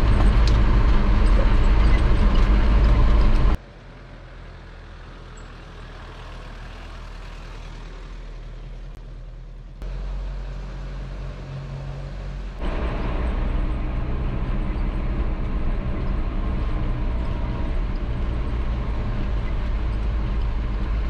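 Vehicle driving, a steady engine and road rumble. It drops sharply about three and a half seconds in, then comes back up in two steps, near ten seconds and again about twelve and a half seconds in.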